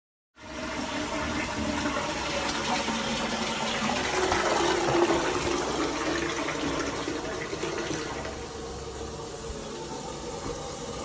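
Toilet being flushed: a rush of water that swells for several seconds, then settles into a quieter steady flow as the tank refills, with a sharp knock at the very end.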